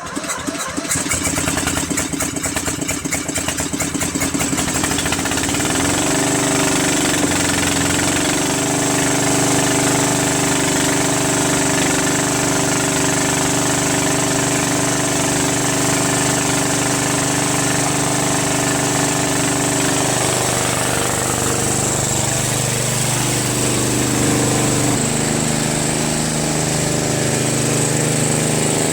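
Murray Select lawn tractor engine cold-started: it catches right away and then runs steadily. The engine speed shifts about six seconds in and again about twenty seconds in.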